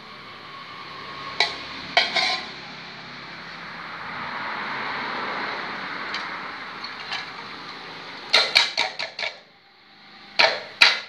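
Aluminium cooking pot and its lid clanking as they are handled, with a softer rustle in the middle as wood ear mushrooms and sliced onion are tipped from a plastic colander into the pot. A quick run of about six clatters comes late on, then two more sharp clanks near the end.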